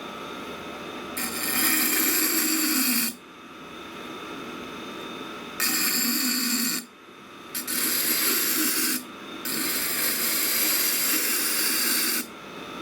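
Knife blade pressed against the stone of a running Tormek wet grinder. The grinder's motor runs with a steady hum, and there are four spells of loud scraping hiss as the steel is ground, the last and longest lasting nearly three seconds.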